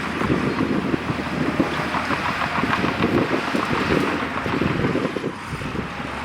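Bulldozer's diesel engine running steadily under load, with a rough, crackling texture, dipping slightly near the end.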